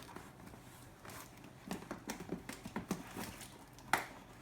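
Cardboard box being handled and worked open by hand: scattered light knocks, taps and scrapes, with one sharper knock near the end.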